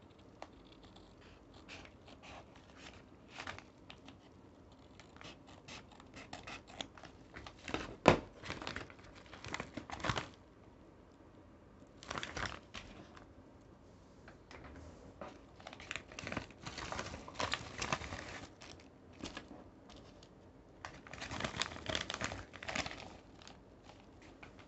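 Scissors cutting open a Sealed Air Mail Lite bubble-lined mailer, then the paper and bubble-wrap lining crinkling and tearing as hands pull it apart. It comes in irregular bursts with short quiet gaps, and a sharp snap about eight seconds in is the loudest moment.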